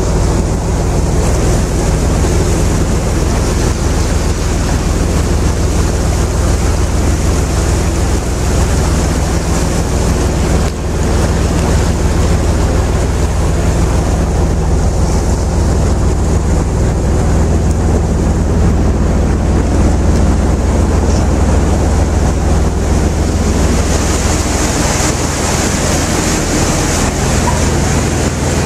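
Tour riverboat's engine running steadily as a low hum, with water rushing past the hull and wind on the microphone; a high hiss grows louder near the end.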